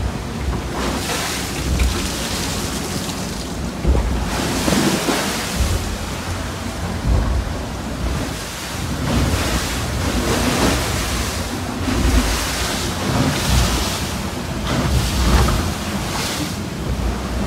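IMOCA racing yacht rushing through heavy seas at about 17 knots in 29 knots of wind: a steady hiss of spray and breaking water that surges every second or two, with wind buffeting the microphone in low rumbling gusts.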